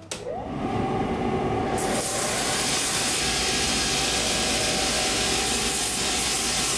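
Shoe finishing machine running, its abrasive wheel grinding the leather heel seat of a shoe sole. A steady machine whir builds in the first second. About two seconds in, the hissing rasp of leather being sanded sets in and holds steady.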